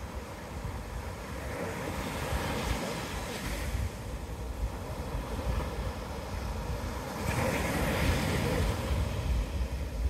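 Surf breaking and washing up the beach, with wind buffeting the microphone. A louder wave breaks about seven seconds in.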